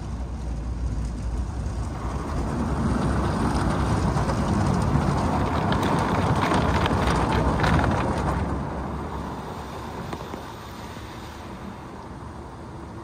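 Automatic car wash gantry moving past the car, heard from inside the cabin: a rushing noise that builds, is loudest about six to eight seconds in with some spattering, then eases off.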